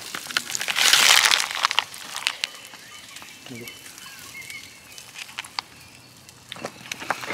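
Plastic film on a supermarket tray of marinated pork steaks being torn open with a grill fork: a loud crinkling rustle about a second in, then quieter scrapes and clicks as the fork works in the tray and lifts a steak out.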